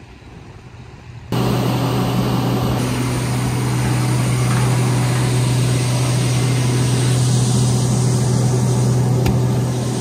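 Combine harvester running close by: a loud, steady engine drone with a strong low hum, which cuts in suddenly about a second in after a faint, quiet start.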